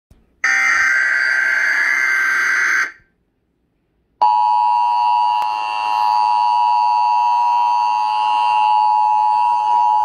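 Emergency Alert System alert tones: a screechy burst of digital data header lasting about two and a half seconds, a pause of just over a second, then the steady two-tone EAS attention signal starting about four seconds in and holding steady.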